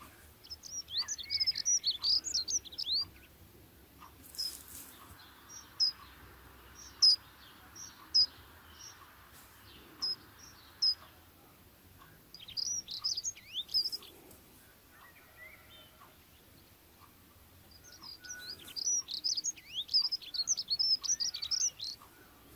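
Small birds chirping: quick bursts of high twittering, with single sharp chirps between the bursts.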